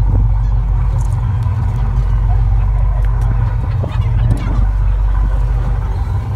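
Passenger ferry's engine drone, a loud, steady low rumble, with a few faint, high gull cries over it.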